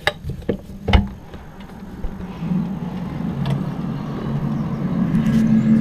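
A few knocks and clicks as a window is opened, then a low, steady droning hum of several tones sets in and slowly grows louder: the unexplained "strange noise" heard outside.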